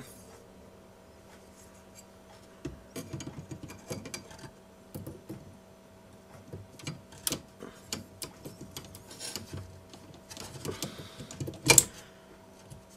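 3M tape-path alignment template being fitted by hand into a cassette deck's tape well, knocking against the transport: a run of small irregular clicks and taps, with one louder click near the end.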